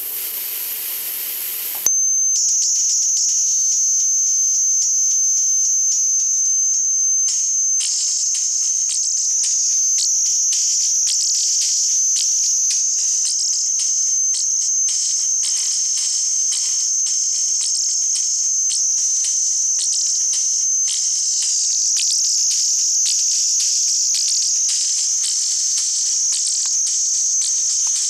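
FM-encoded audio cassette played back raw through a speaker. A high hiss comes first; about two seconds in, a steady high whistle from the 6420-hertz carrier takes over. From about eight seconds in it becomes a shrill, wavering, chirring buzz as the recorded program modulates the carrier.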